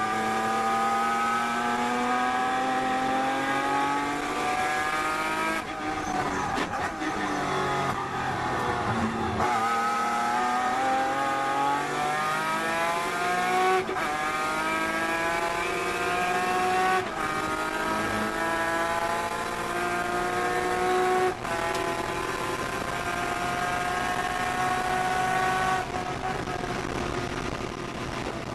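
Datsun 240Z race car's straight-six engine heard from inside the cockpit, pulling at full throttle with its pitch rising in each gear, broken by several quick gear changes. Near the end the engine note drops off as the driver lifts.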